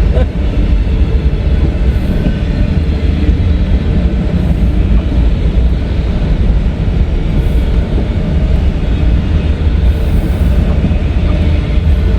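CSX freight train M209 passing close by, with a steady low noise of rolling freight cars that holds throughout.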